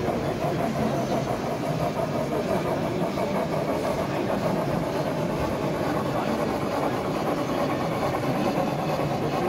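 G-scale model steam locomotive running slowly across a wooden trestle, a steady mechanical running sound over a busy hall's background din.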